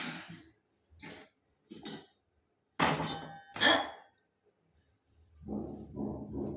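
Hiccups: about five short, sharp, breathy hics at uneven gaps, the loudest two about three seconds in. Near the end a lower pulsing sound follows.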